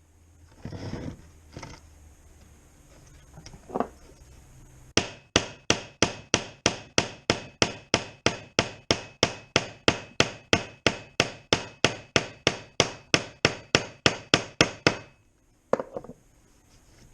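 A hammer tapping steadily and rapidly, about three to four strikes a second for roughly ten seconds, each strike with a short ring, after a few seconds of faint handling noise. It is part of knocking a damaged skid plate back into shape.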